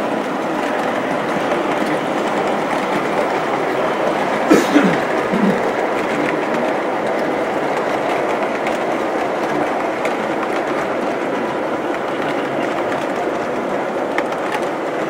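O scale model passenger train running on two-rail track: a steady rumble of metal wheels rolling over the rails and joints. There are two brief louder knocks about four and a half seconds in.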